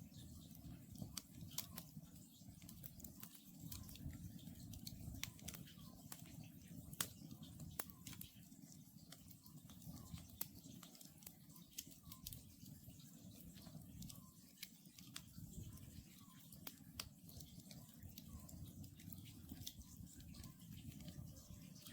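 Wood campfire crackling, with frequent sharp irregular pops over a soft low rumble. An Oriental scops owl calls faintly and repeatedly behind it.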